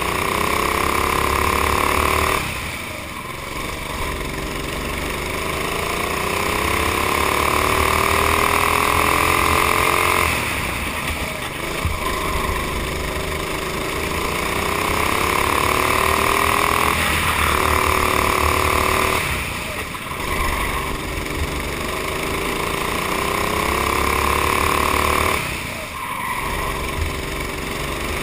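Honda 390 single-cylinder four-stroke kart engine heard on board under full throttle, its pitch climbing steadily along the straights. About five times it drops off sharply as the throttle is lifted for a corner, then picks up and climbs again.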